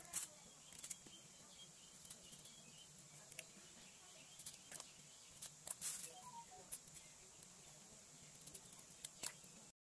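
Quiet handling sounds: scattered light clicks and taps of a knife against a metal pot and on halved Thai eggplants soaking in salted water.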